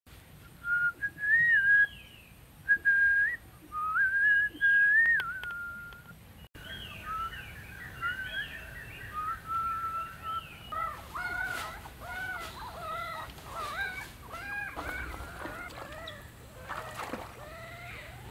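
A slow whistled tune in held and sliding notes for about six seconds. After a cut, a string of short, high, rise-and-fall whimpering cries of newborn puppies, several a second and quieter.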